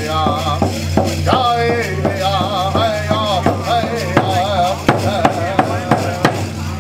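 A man singing a powwow-style song into a microphone while beating a single-headed rawhide hand drum with a padded beater, a steady beat of about three strikes a second.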